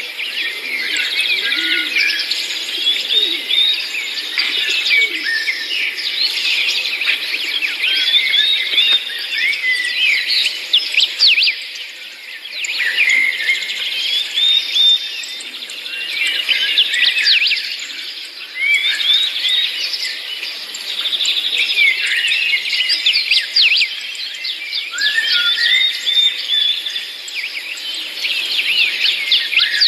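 Many small birds chirping and twittering together in a dense, overlapping chorus of quick high whistles and trills, easing briefly twice before picking up again.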